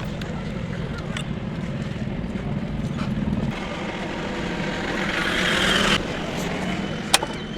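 Road vehicle noise: a steady low engine hum, with a hiss that swells about five seconds in and stops abruptly a second later, and a sharp click near the end.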